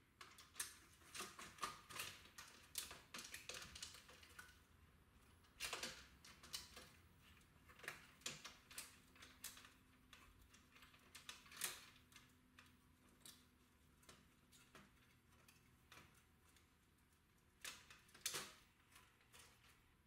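Light, irregular clicks, taps and plastic rattles of cable connectors being unplugged and the cassette mechanism being handled inside the open chassis of a Philips DCC900 deck, with a few louder knocks scattered through.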